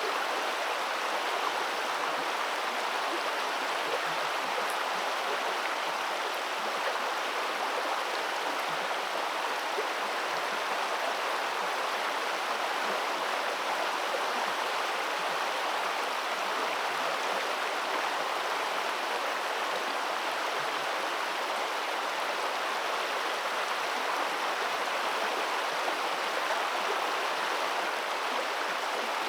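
Steady rush of flowing river water, an even, unchanging noise.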